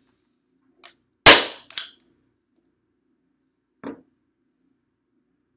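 Hand-operated metal staple gun fired once into the taped corner of a TV's plastic back, a loud sharp snap about a second in. A softer click follows just after, and a light knock comes near the end.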